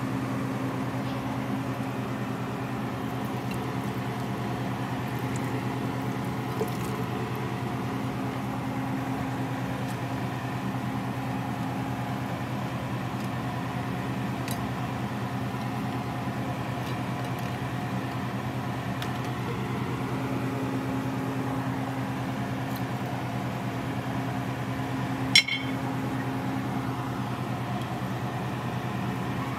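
A steady low electrical hum, like a running kitchen appliance, goes on at an even level. There are a few faint clicks and one sharp click about 25 seconds in.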